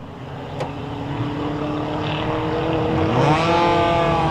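Four-cylinder ministock race car engines running, growing steadily louder as the cars come closer, with one engine rising in pitch about three seconds in.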